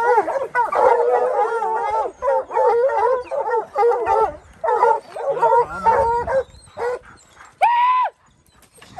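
A pack of hounds baying at a mountain lion treed above them, many overlapping barks and bawls, thinning out after about six seconds, with one long drawn-out bawl near the end.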